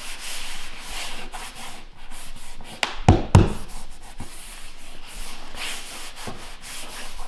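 Flooring planks scraping and rubbing as they are handled and fitted, with two sharp knocks in quick succession about three seconds in.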